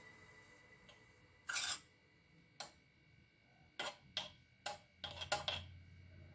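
A metal spoon clinking and tapping against a glass jar and a steel bowl as powder is spooned in. The clicks are light and scattered, with a quick run of several together about five seconds in.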